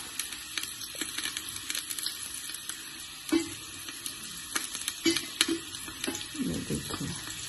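Chopped onions sizzling in hot oil in a steel handi, a steady hiss with fine crackles as they fry towards browning.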